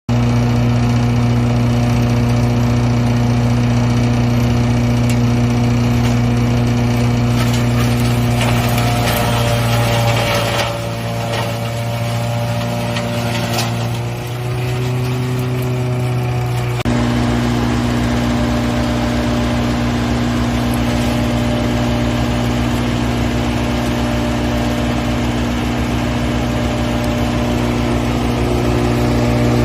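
Horizontal hammer-mill grinder running loudly and steadily as it grinds finished compost. Its engine note shifts and dips between about ten and seventeen seconds in, then settles back to a steady run.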